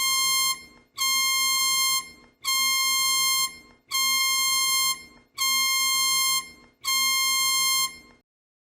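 Electronic emergency-alert alarm tone: a single high, buzzy beep about a second long, repeated six times at an even pace, then cutting off near the end.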